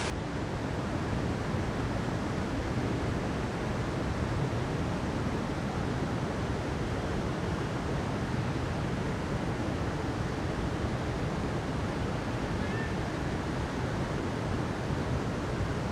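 Steady rushing of flowing river water, a deep even wash of water noise with no break.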